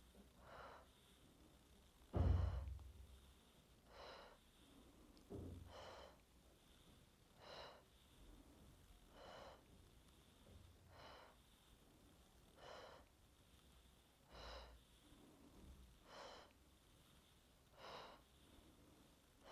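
A woman breathing out in short, faint, even puffs, about one every 1.8 seconds, exhaling on each squeeze of a seated side crunch. One stronger puff comes about two seconds in.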